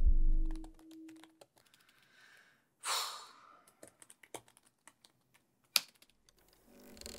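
Typing on a laptop keyboard: scattered light key clicks, with one sharper click near the end. A low held tone fades out in the first second, and a short hissing rush comes about three seconds in.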